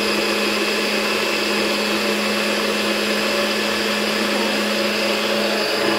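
NutriBullet blender motor running at a steady pitch, blending a liquid smoothie mix with no ice in it yet.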